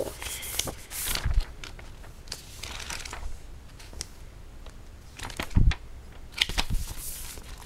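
Pages of a thick paper instruction book being flipped through, a papery swish with each page turned, with a few dull thumps in between, the loudest about five and a half seconds in.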